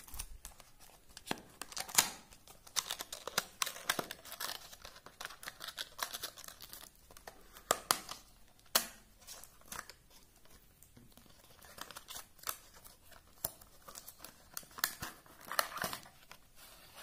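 Small cardboard box and clear plastic packaging being opened by hand: irregular crinkling and rustling with sharp clicks and snaps, the loudest about two seconds in and another near nine seconds.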